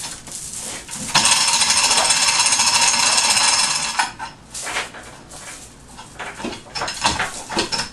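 Chain hoist paying out its chain with a loud metallic rattle for about three seconds while it lowers a removed car engine, then scattered clinks and knocks of chain and metal.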